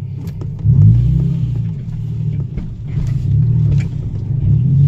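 Nissan 350Z's VQ35 3.5-litre V6 engine heard from inside the car while driving, its note rising and falling three times as the car accelerates, about a second in, around three seconds and near the end. It runs without an audible misfire; the owner says it feels pretty good after his fixes.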